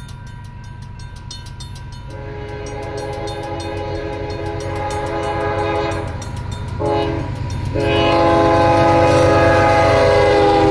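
Railroad crossing bells ringing with fast, even strokes; one of them is a Safetran mechanical bell that sounds rough. An approaching Union Pacific diesel locomotive's air horn grows louder over them, blowing a long blast, a short one and a final long one held as the locomotive reaches the crossing.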